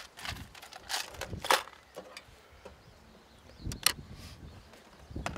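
A few light, sharp clicks and taps from a syringe, a drug vial and a dart barrel being handled while a tranquilliser dart is loaded. The loudest come about a second and a half in and again near four seconds in.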